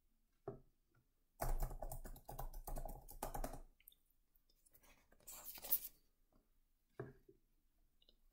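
Sheets of drawing card being handled and flipped over on a stand: bursts of paper rustling and light clicks. There is a short one about half a second in, a longer stretch from about one and a half to nearly four seconds, and shorter ones near six and seven seconds.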